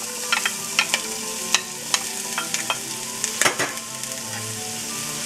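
Chopped onions sizzling in hot olive oil in a stainless steel pot, a steady hiss with many scattered ticks and pops. The onions are scraped in from a bowl with a wooden spatula, which adds sharper clicks; the loudest comes about three and a half seconds in.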